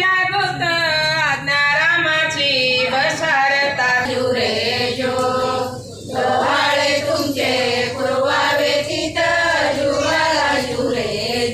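A group of women singing a Ram Navami paalna, the Marathi cradle song for Rama's birth, together, with a short pause about halfway through.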